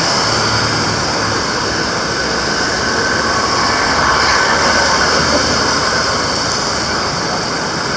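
Steady noise of congested road traffic, with vehicle engines running.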